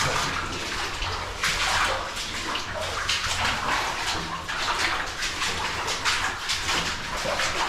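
Feet wading through shallow water over soft, quicksand-like mud, an irregular run of splashes and sloshes.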